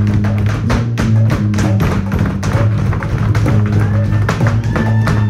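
Flamenco footwork (zapateado): heeled dance shoes striking the stage in rapid taps over live flamenco music with a steady low note.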